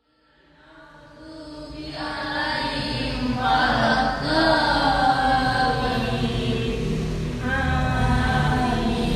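A group of voices chanting together in sustained, held notes over a low rumble, fading in from silence over the first two seconds.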